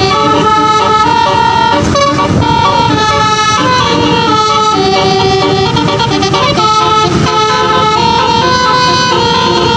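Bus telolet horn of the 24-note 'basuri' type playing a melody: a run of held notes stepping up and down in pitch, over engine and traffic noise.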